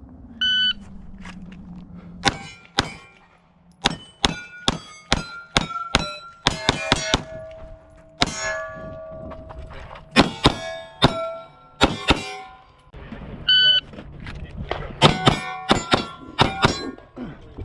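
A shot timer beeps, then a fast string of 9mm pistol shots from a Glock 45, each answered by the ringing clang of hit steel targets. About two-thirds of the way through, a second beep starts another rapid string of shots and steel rings.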